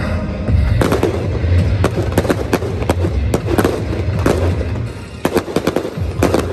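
Aerial fireworks going off in a rapid string of bangs and crackles, beginning about a second in, over background music with a steady bass.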